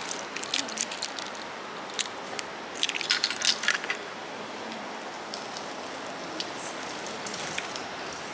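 Paper grocery bags crackling and rustling in a folding wagon, with scattered clicks and a dense burst of crackling about three seconds in, over a steady hiss.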